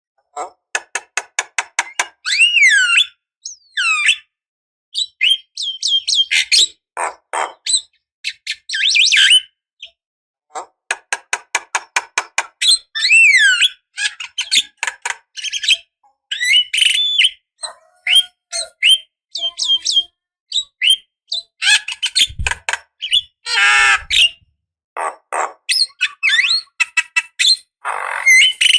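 Javan myna (jalak kebo) singing a loud, varied song: quick runs of short repeated chips, swooping whistles and harsh squawks, in phrases broken by short silences.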